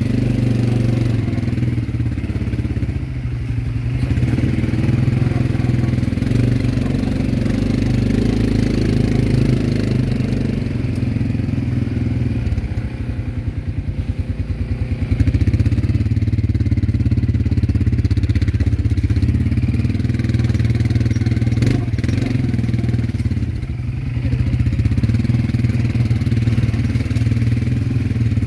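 ATV engine running under the rider as it drives, its note rising and easing with the throttle. About halfway through it drops to a low, pulsing note, then picks up again.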